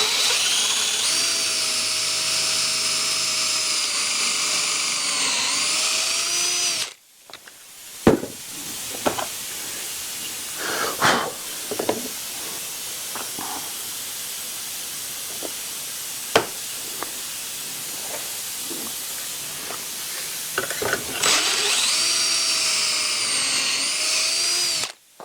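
Power drill driving a pocket-hole bit into a board held in a pocket-hole jig. It runs for about seven seconds, its whine sagging briefly under load before it stops. Then come scattered knocks and clatter of the board being handled and repositioned, and a second drill run of about four seconds near the end.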